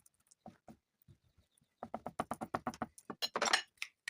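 A fast run of rattling taps, about ten a second, followed by a short, louder hissing shake: a container of seasoning or seeds being shaken over food.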